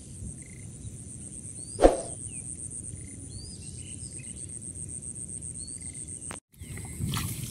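Insects trill steadily at a high pitch over a flooded field, with faint short rising bird chirps every second or two. One short, sharp, loud sound stands out about two seconds in.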